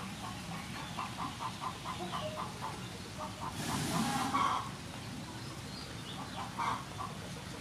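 Domestic fowl calling in a quick run of short, evenly spaced notes over the first two seconds, with a few scattered calls later. A louder, brief hissy burst comes about three and a half seconds in.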